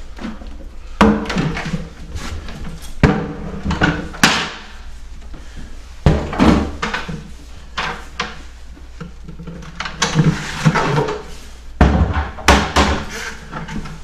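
A string of sharp knocks and thuds with clatter in between, from a tool bucket and hand tools being set down and handled at the foot of an apartment door.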